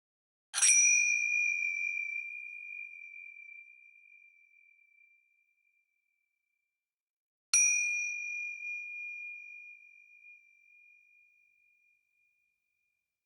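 A bell struck twice, about seven seconds apart, each strike a single high ding that rings on and fades away over several seconds.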